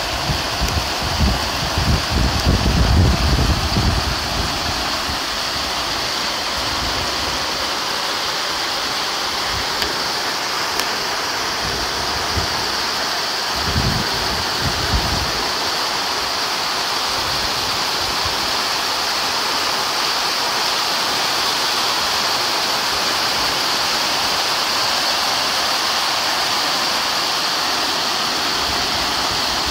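Heavy rain pouring steadily, an even loud hiss of rain falling on pavement, grass and buildings. Low rumbling on the microphone in the first few seconds and again about halfway through.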